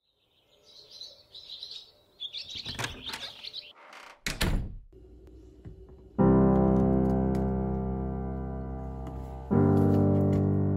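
Bird chirps with a couple of quick swishes, then a sustained piano chord about six seconds in and another about three seconds later, each ringing and slowly fading.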